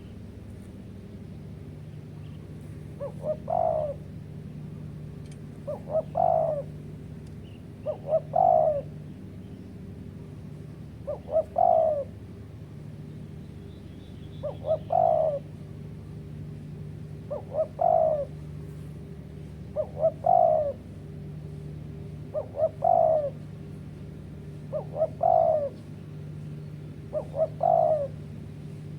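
Spotted dove (tekukur) cooing: ten repeated phrases, each with two or three short notes and then a longer coo, about one every two and a half to three seconds. A faint steady low hum runs underneath.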